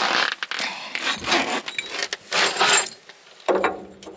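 Rustling and scraping in several irregular bursts, the loudest a little past the middle.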